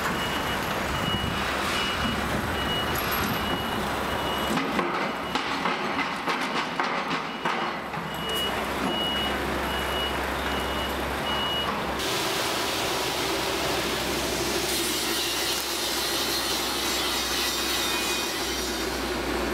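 Concrete mixer truck running with its reversing alarm beeping about twice a second, the beeps broken by a few seconds of clattering in the middle. About twelve seconds in, the sound cuts abruptly to a steadier machine running with a low hum.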